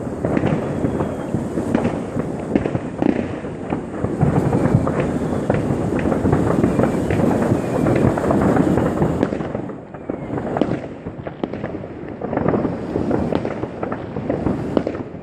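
Dense fireworks going off non-stop, with many overlapping bangs and crackles from rockets and firecrackers over a continuous rumble. The barrage eases for a moment about ten seconds in, then picks up again.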